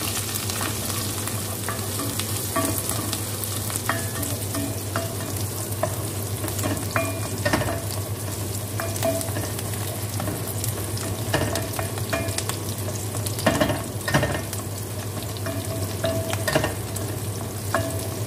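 Chopped garlic and onions sizzling in hot oil in a pot, while a spatula stirs them, scraping and knocking against the pot at irregular moments. The onions and garlic are being browned.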